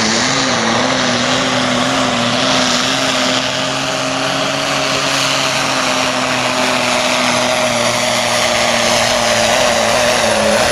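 Volvo FH16 pulling truck's diesel engine held at full throttle under heavy load as it drags the weight sled, a steady high-revving note that wavers briefly at the start and then holds.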